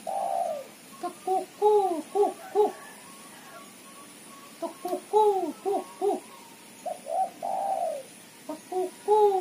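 Female spotted dove cooing in repeated phrases. Each phrase is a run of short coos that rise and fall, and two of the phrases carry a longer drawn-out coo.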